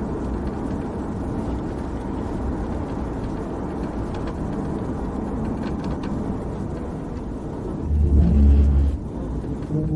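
Steady road and engine noise of a police patrol car driving at highway speed. A louder low hum lasts about a second near the end.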